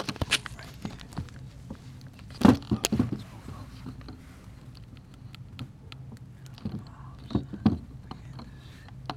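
Handling noise from a phone camera being moved against clothing: rustling, scattered clicks and a few louder knocks, about two and a half seconds in and again near the end, over a steady low hum.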